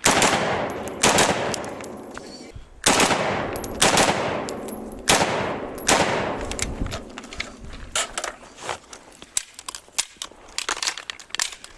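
Firearm shots: about six loud gunshots spaced roughly a second apart over the first six seconds, each ringing out in a long echoing decay, followed by fainter, sharper pops and clicks.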